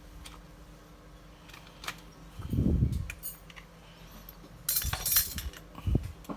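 Handling noise from a disassembled Canon EOS 60D camera and small tools on a workbench: scattered small clicks, two dull knocks, and a brief metallic clatter about five seconds in.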